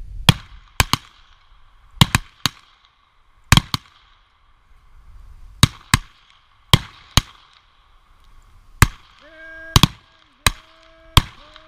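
Revolver shots fired in a rapid, irregular series: more than a dozen sharp cracks, some in close pairs, each with a short ringing tail.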